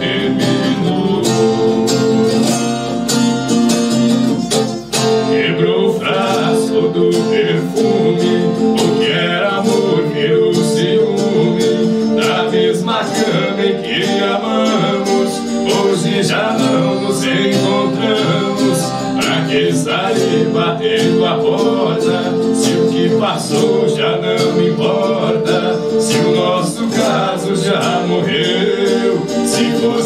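Live acoustic Brazilian viola played with plucked notes and strums, with a man singing along.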